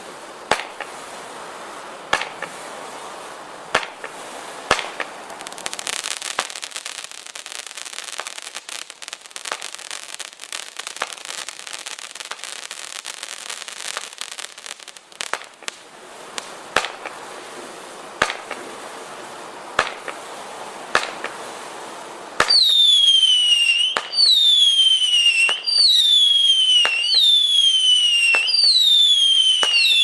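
Fireworks: a steady crackle with sharp bangs every second or two. About two-thirds of the way through, a louder run of whistling shots takes over, each a falling whistle, about one every second and a half.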